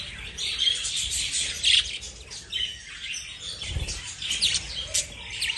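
Pet lovebirds chirping, with many short high calls overlapping one another.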